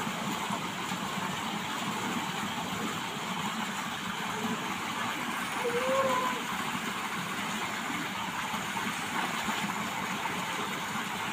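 Steady rush of water gushing from a pipe into a concrete tank and spilling over its edge.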